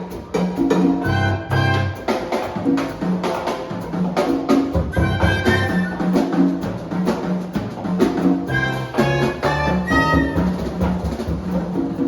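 Latin jazz band playing live: a steady rhythm-section groove of bass and drums/percussion, with a pitched melody line on top.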